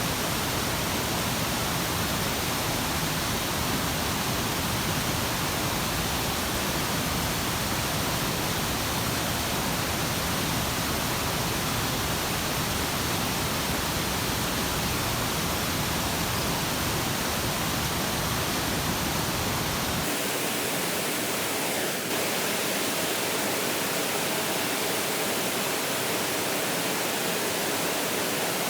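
Steady rushing water noise, even and unbroken; about twenty seconds in, the deepest rumble drops away.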